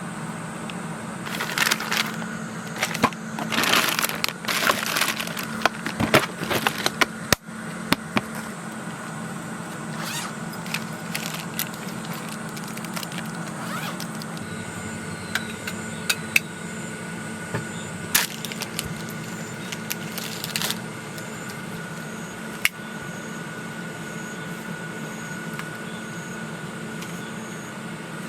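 Clicks, clatter and rustling from things being handled, dense in the first several seconds and then scattered single clicks, over a steady mechanical hum.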